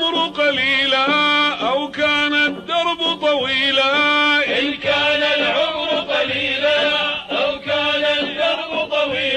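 Male voice chanting an Arabic Sufi praise song (madih) in a long melismatic line, the pitch wavering and bending with hardly a break.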